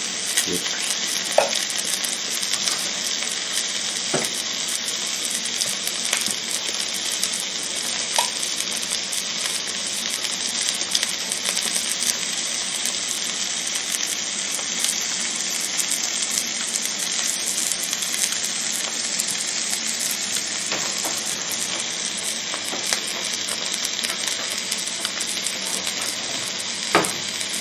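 Angus beef steak sizzling on the ridged plate of an electric grill: a steady frying hiss with a few small pops.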